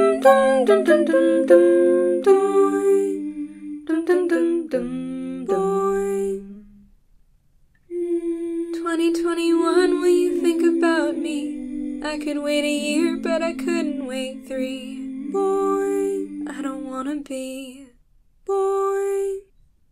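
Voices singing in harmony, several notes held together, with a brief break about seven seconds in and another near the end before a last held note.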